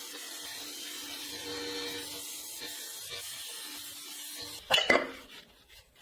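Steady hiss of a small power tool working the steel of a knife blade, stopping about four and a half seconds in, followed by a few sharp knocks.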